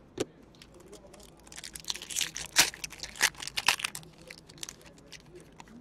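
Plastic trading-card pack wrapper being torn open and crinkled, a dense run of crackling for a couple of seconds in the middle with a few scattered crinkles after.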